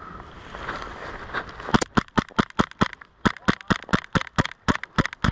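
A rapid string of sharp airsoft shots, about six or seven a second, starting a little under two seconds in and going on for over three seconds.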